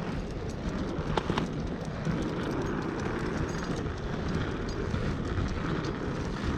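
Steady rolling rumble of inline skate wheels on paving, with a couple of sharp clicks a little over a second in.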